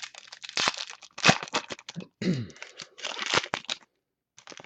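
Plastic crinkling and card rustling as trading cards and their packaging are handled, with a few sharp clicks.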